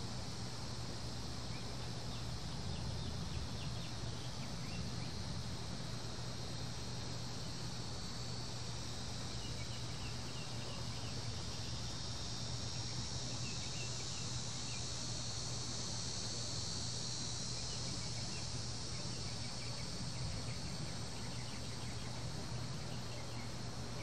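A chorus of cicadas singing, a steady high buzz that swells a little past the middle, over a low steady hum.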